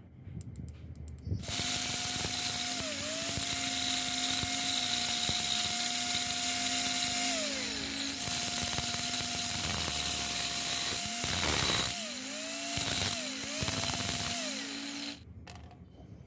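Cordless drill running while its bit drills through a thin disc, with a steady motor whine that dips briefly under load. About halfway it winds down and restarts, then comes in several short trigger bursts before stopping near the end.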